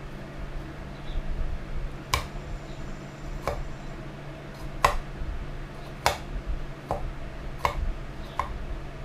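Seven sharp knocks from hand tools at work, at uneven intervals, over a steady low hum.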